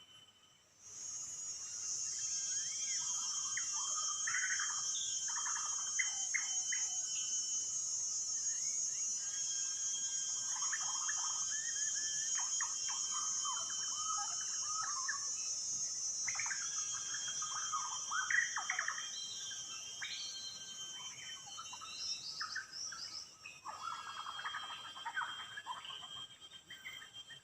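Songbird singing in repeated bursts of varied warbled phrases over a steady, high-pitched drone of insects. The drone starts suddenly about a second in and fades after about twenty seconds.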